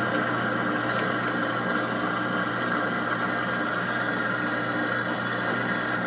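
Steady mechanical hum, like a running fan or motor, with a low drone underneath. A few faint light clicks in the first couple of seconds as computer parts are set into the dishwasher's wire rack.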